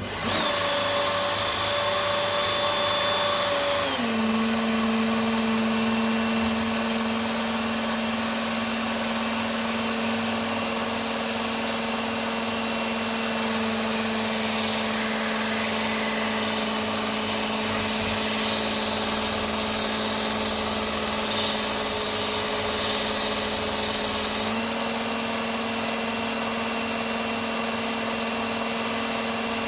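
A Work Sharp Ken Onion belt sharpener with its blade grinding attachment runs steadily as the bit of a Gränsfors Bruks Scandinavian Forest Axe is ground on the abrasive belt, making a loud hiss over the motor's whine. The motor's pitch drops about four seconds in, and the grinding hiss grows harsher for several seconds about two-thirds of the way through.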